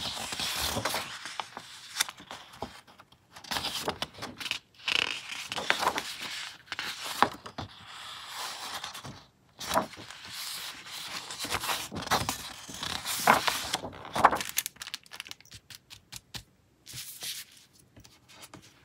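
Large printed paper sheets rustling and crinkling as hands flip and slide them over one another, with sharp paper snaps in between. The handling grows quieter and sparser from about three-quarters of the way in.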